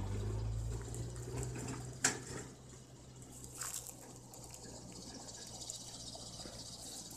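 Bushfire burning through forest undergrowth: faint crackling, with two sharper pops about two and three and a half seconds in. A low hum fades out over the first second or so.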